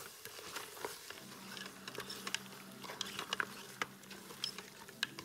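Lamb pieces sizzling with spices in hot oil in a cooking pot, crackling with scattered sharp pops while being stirred. A steady low hum comes in about a second in.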